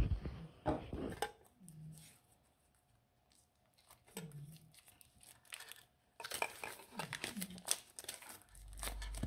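Plastic shrink wrap being slit and peeled off a metal collector tin, crinkling and tearing in bursts with short quiet gaps between them.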